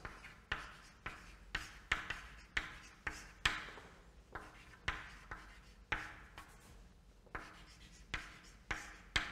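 Chalk writing on a chalkboard: a string of sharp taps and short scratchy strokes, about two a second, as letters are written.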